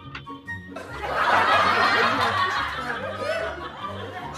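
Background music with people laughing and chuckling; the laughter comes in about a second in.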